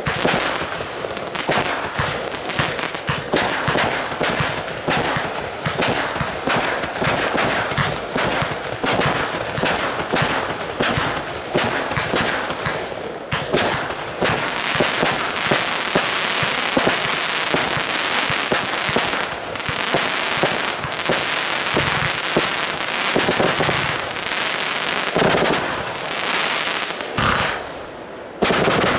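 Fireworks going off in rapid succession, with many sharp reports a second. About halfway through the reports merge into a dense, continuous stretch, and they ease off briefly near the end before loud shots start again.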